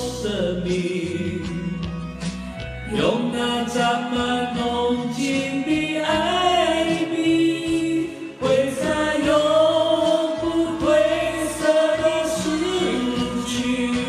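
A Mandarin pop song: a solo voice singing long held notes over instrumental accompaniment.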